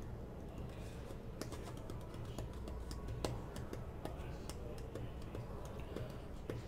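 Light, irregular clicks and taps, several a second, over a low steady hum.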